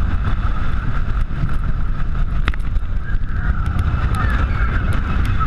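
Wind buffeting the microphone over the low rumble of the Goliath roller coaster train running along the track at speed, with a single sharp click about two and a half seconds in.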